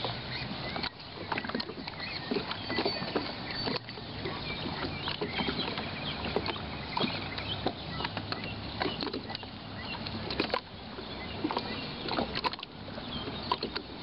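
Small wind-driven waves lapping and slapping against the shore below, an uneven run of little splashes and knocks over a steady wash of water noise.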